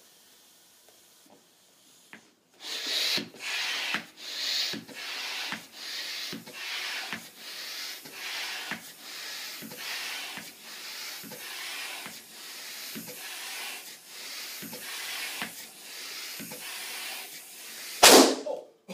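Hand air pump being worked in steady strokes, each stroke a short hiss of air with a low thump, about three strokes every two seconds, as a balloon is inflated. Near the end the balloon bursts with one loud, sharp bang.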